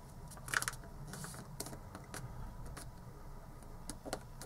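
Hands folding a sheet of origami paper on a cutting mat: faint paper rustling with scattered small clicks and taps, the clearest about half a second in and again near the end.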